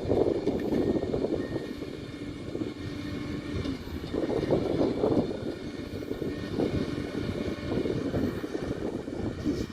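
Komatsu D41P bulldozer's diesel engine running under working load, its rumble swelling and easing every second or two, with a faint steady high whine above it.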